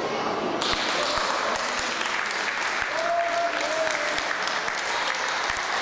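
Crowd of children and parents applauding, a steady clapping that starts about half a second in.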